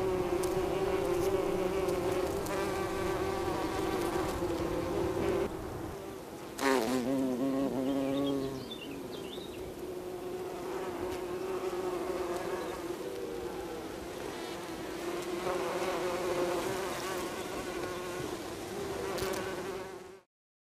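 Bees buzzing steadily around flowers, one flying close past about seven seconds in with a sudden louder, wavering swoop in pitch. The buzzing cuts off just before the end.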